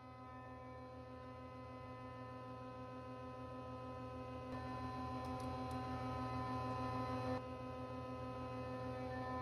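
A steady electric hum with several even overtones, slowly growing louder and dipping slightly about seven seconds in.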